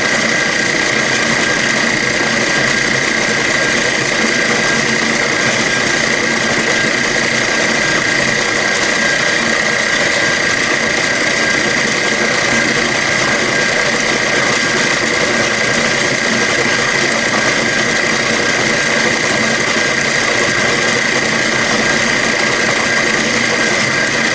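Milling machine with an end mill cutting into an aluminum AR-15 lower receiver, running steadily with a constant high whine.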